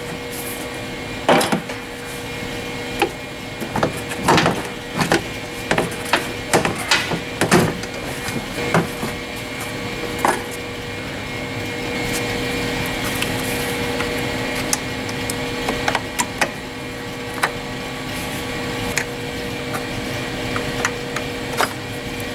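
Scattered clicks and knocks of plastic air-intake parts, hoses and connectors being handled and pulled loose in a Ford 5.4 V8's engine bay, busiest in the first half, over a steady low hum.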